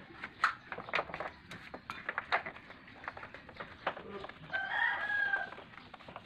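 Scattered sharp clicks and clinks of hand tools and bolts being worked at the top of a scooter's CVT cover, then a rooster crowing once for about a second near the end.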